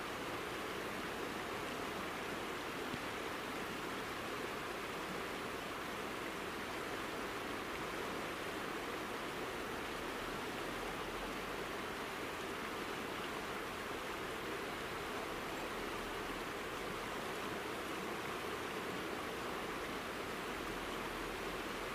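Steady rushing of a clear mountain river, the Azusa, flowing over gravel and stones.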